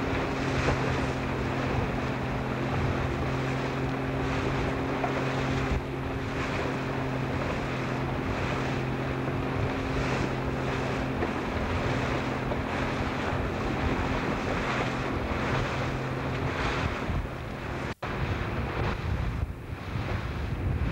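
A boat motor running with a steady low hum under wind buffeting the microphone and the wash of choppy water. Near the end the hum fades, the sound cuts out for an instant, and then only gusty wind noise remains.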